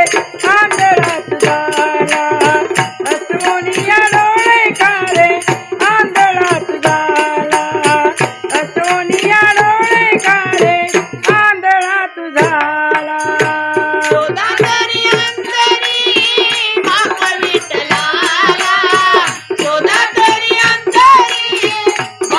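Women singing a Marathi devotional bhajan with ektari accompaniment, over steady, fast percussion keeping the beat.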